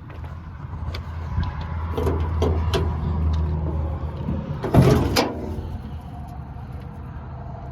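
A few sharp metallic clicks and then one loud clunk about five seconds in, like a latch released and a door or access panel swung open on a Case CX240B excavator, over a low steady rumble.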